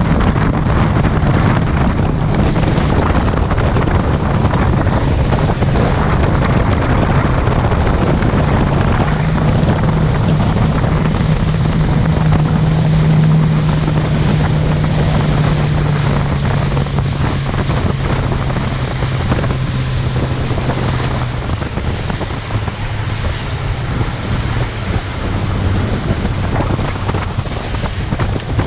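Motorboat running at speed: wind buffeting the microphone and water rushing and splashing off the hull, over the steady low drone of its engine. The drone drops in pitch about three-quarters of the way through.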